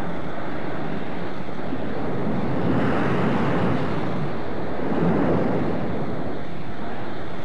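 Ocean surf washing and churning over the shoreline, a steady rushing that swells about three seconds in and again about five seconds in.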